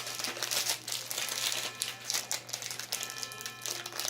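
Trading card packaging and cards being handled: a run of irregular crinkling and rustling.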